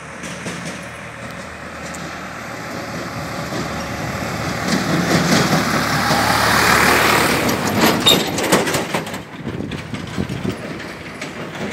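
Farm tractor towing a trailer coming up and passing close by: its engine grows steadily louder to a peak about seven seconds in, with a short clatter of knocks as it goes past, then fades away.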